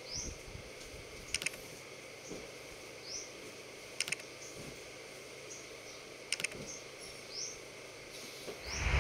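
Computer-mouse click sound effects on an animated end screen: three quick double clicks, about two and a half seconds apart, over a faint hiss, then a deep whoosh swelling up near the end.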